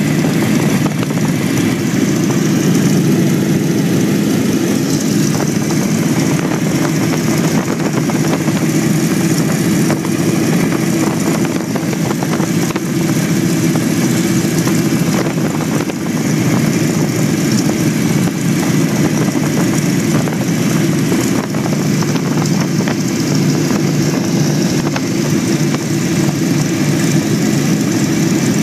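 1929 Ford Tri-Motor's radial piston engines droning steadily with their propellers turning, heard from inside the cabin on the approach to landing.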